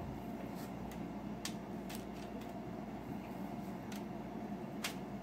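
A spoon dropping a mound of sticky no-bake oatmeal cookie mixture onto a wax-paper-lined cookie sheet: about five faint clicks and light taps over a steady low room hum.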